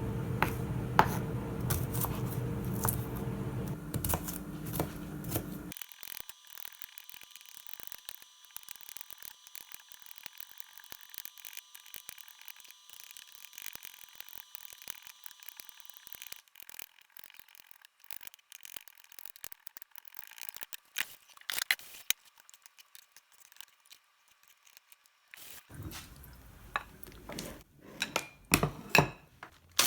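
Knife chopping garlic on a cutting board: scattered sharp taps, loudest at the start and in a cluster near the end. A low steady hum runs underneath and cuts off about six seconds in.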